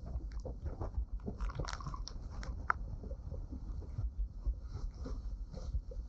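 Storm wind buffeting the microphone in an uneven low rumble, with irregular taps and crackles of raindrops striking the camera.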